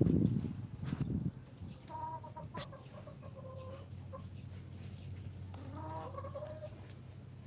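A chicken clucking, with two drawn-out, wavering calls about two seconds and six seconds in, over a low steady hum. A muffled rumble fills the first second, and a single sharp click falls between the calls.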